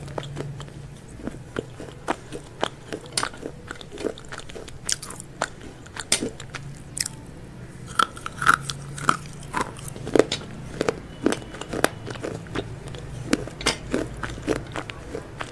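Close-up eating of crispy fried chicken: irregular sharp crunches of the coating between bites and chewing, several a second at times.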